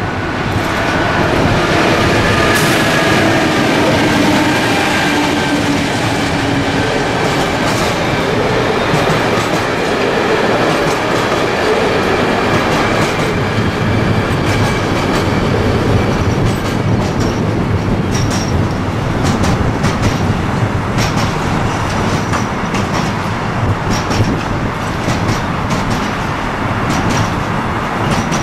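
A pair of MLW diesel locomotives drawing a container freight train past, their engines droning loudly in the first several seconds. Then the container wagons' wheels rumble and clack over the rail joints, with brief high wheel squeals in the second half.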